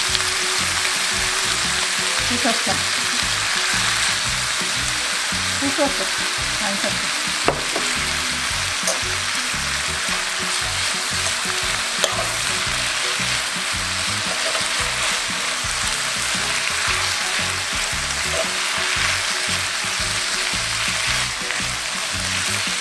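Thinly sliced pork belly sizzling steadily as it is stir-fried in soy sauce in a nonstick pan and tossed with wooden chopsticks. A couple of sharp clicks sound partway through.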